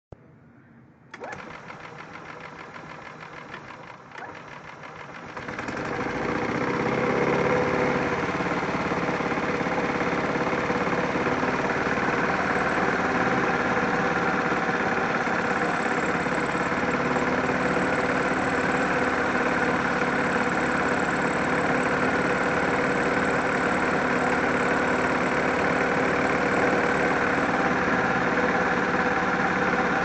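1999 Yamaha G16 gas golf cart's engine and belt drive running. A quieter mechanical sound starts about a second in. About five seconds in it rises to a steady, louder running with a high squeal from the drive belt, a fault that the owner has not been able to cure.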